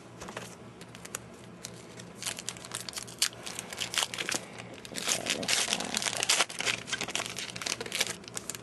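A trading card pack's wrapper crinkling and crackling as hands tear it open, getting louder in the second half.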